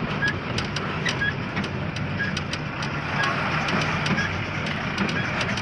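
Engine and road noise of a moving vehicle heard from inside its cab, a steady hum. A faint short high beep repeats about once a second.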